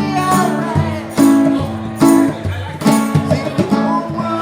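Live acoustic music: strummed acoustic guitar chords on a steady beat, with a melody line over them.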